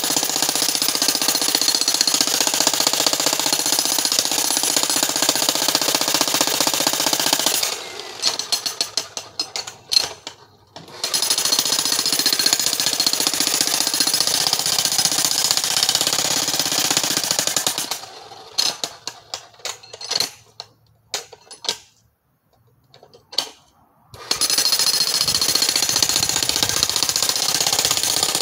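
Corded electric demolition hammer breaking rock, running in long stretches of rapid hammering. It stops twice, about eight and about eighteen seconds in, leaving scattered short knocks, and starts hammering again about eleven and about twenty-four seconds in.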